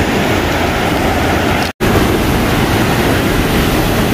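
Mantaro River rapids rushing steadily, a loud unbroken roar of fast water, which cuts out for a split second a little under two seconds in.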